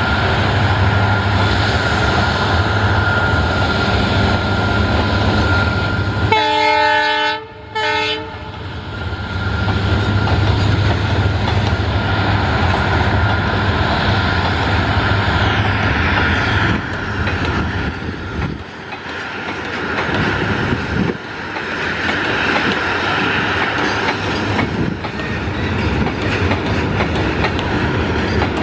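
Loaded freight train rolling past, its wagon wheels clacking over the rail joints over a steady diesel hum. About six seconds in, a locomotive horn sounds two short blasts close together.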